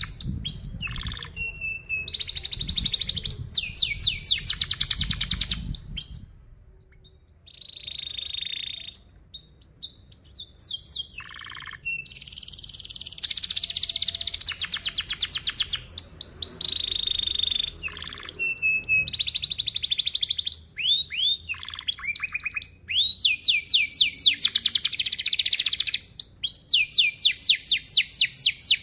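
Domestic canary singing a long song of chirps and fast rolling trills, phrase after phrase. There is a brief lull about six seconds in.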